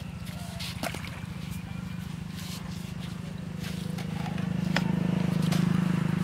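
A small engine running steadily somewhere off, a low hum with a fast pulse that grows louder about four seconds in. A few light clicks sound over it.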